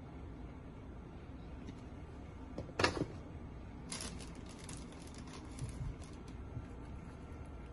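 Kitchen handling noise over a low steady hum: one short, loud burst about three seconds in, then light, scattered crackling rustles for a few seconds.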